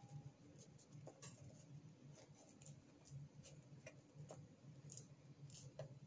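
Faint scratching and light irregular clicks of a tissue rubbing inside a handheld GPS's plastic battery compartment, wiping corrosion residue off the battery contacts, over a low steady hum.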